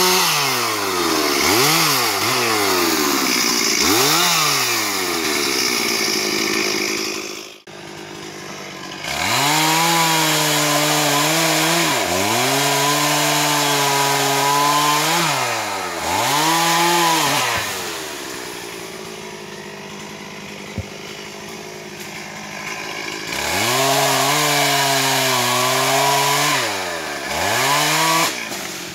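Stihl MS440 two-stroke chainsaw revving up and down in quick repeated blips while limbing branches. After a sudden break it runs at steady high revs cutting wood, drops to a low idle for several seconds in the middle, then revs back up into cutting near the end.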